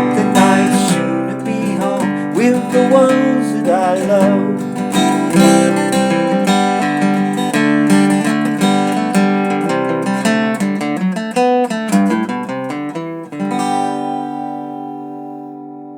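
Acoustic guitar strumming the song's closing chords, ending about thirteen seconds in on a final chord that rings on and fades.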